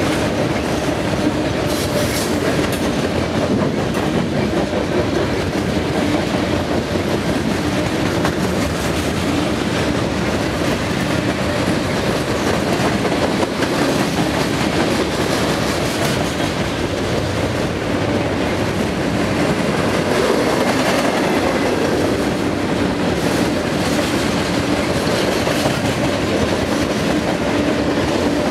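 Freight cars of a passing train rolling by, steel wheels running on the rails in a loud, steady, unbroken clatter.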